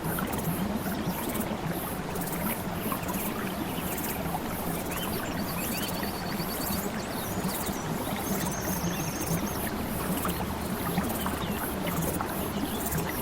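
Continuous flowing water, a steady rushing and trickling, with a short, rapid, high-pitched trill about eight seconds in and scattered small chirps over it.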